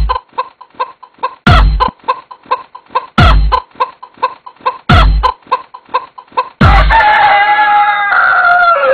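Chicken clucking in a quick rhythm over a heavy bass thump about every second and a half. About two-thirds of the way in comes a long drawn-out crow-like call that falls in pitch at the end.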